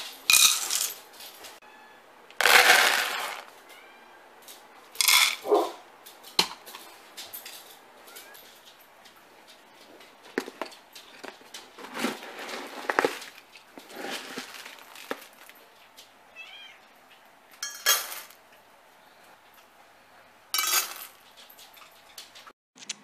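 Dry pet food rattling into metal pet bowls and the bowls clinking, in several short loud bursts. A cat meows briefly between them.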